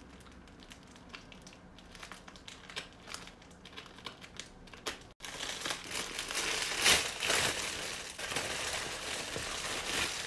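Glossy plastic wrapper of a chocolate Easter egg being pulled at and crumpled by hand. The crinkling is light and scattered at first, breaks off briefly about halfway, then comes back louder and denser as the wrapper is bunched up.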